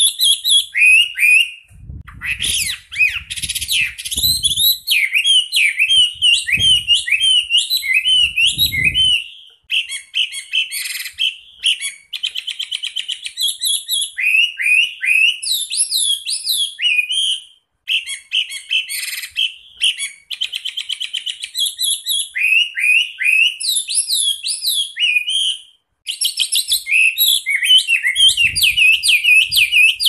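Chinese hwamei (Garrulax canorus) singing loudly in long, dense rolling phrases of fast sweeping whistles and rapid trills, broken by a few short pauses.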